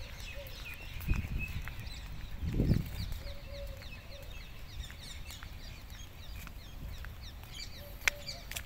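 Many small birds chirping in short, quick calls throughout, with two brief low rumbles about a second and nearly three seconds in.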